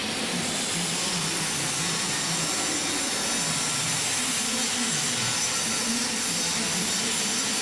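High-speed heater mixer for plastic compounding running, a steady, even hiss with a faint wavering hum beneath it.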